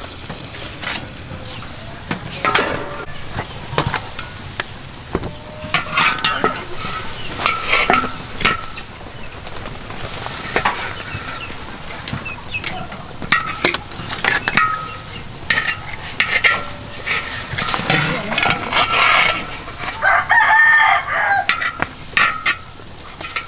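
Metal tongs and a ladle scraping and clinking against a large steel wok as braised pork legs are lifted out onto a metal tray, over a low sizzle from the pan. A rooster crows in the background, loudest about twenty seconds in.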